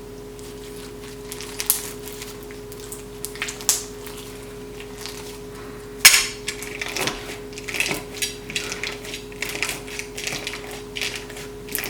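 Clear crunchy slime packed with craft beads being squeezed and pressed, giving irregular crackles and clicks: a few at first, then dense and continuous from about halfway in.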